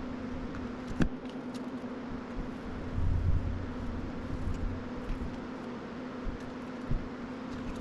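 A small electric motor running steadily with a whirring hum and airflow hiss, a sharp click about a second in and a brief low rumble around the middle.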